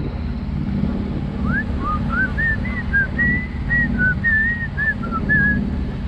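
A person whistling a short tune, about a dozen brief notes of changing pitch, starting about a second and a half in, over the steady low drone of the sailboat's engine.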